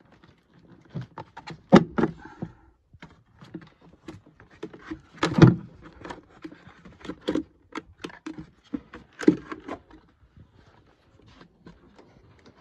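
Irregular plastic clicks and knocks from hands working the air filter housing in a VW Transporter T5 engine bay, the loudest knocks about two, five and a half and nine seconds in.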